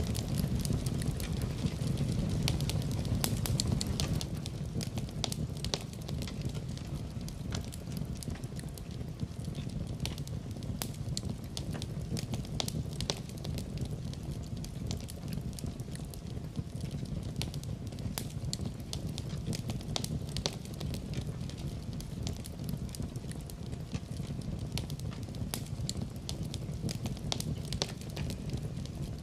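Wood fire burning in a fireplace: a steady low rumble of the flames with frequent sharp crackles and pops throughout, slightly louder in the first few seconds.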